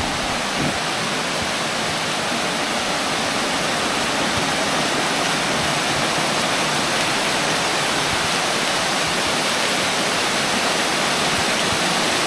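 Creek waterfall swollen by heavy rain: a steady rush of falling and splashing water, growing slightly louder as it gets nearer.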